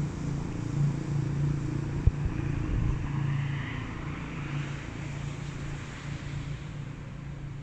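Outdoor street background: road traffic running steadily under a continuous low hum, with a single sharp knock about two seconds in.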